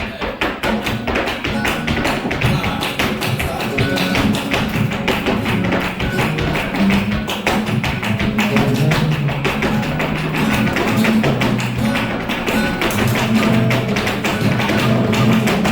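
Flamenco music with dense, rapid tapping throughout.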